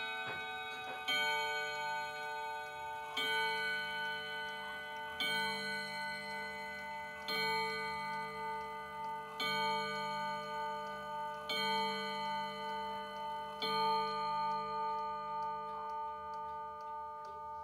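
A Reguladora pendulum wall clock with a Portuguese-made movement striking the hour: seven strokes about two seconds apart, each ringing on at a steady pitch. The clock ticks beneath the strokes.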